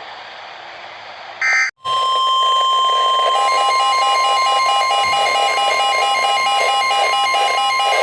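Emergency alert broadcast: after a brief burst of higher tones, a steady single-pitch weather radio warning alarm tone (the NOAA 1050 Hz tone) starts about two seconds in. About a second later a rapid beeping alarm joins it.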